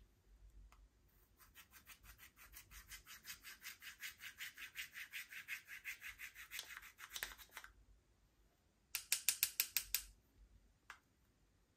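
Pressed highlighter powder in its compact being scraped and crumbled with a small tool: a long run of scratchy strokes, about five a second. Then comes a shorter, louder, quicker run of strokes, and a single click near the end.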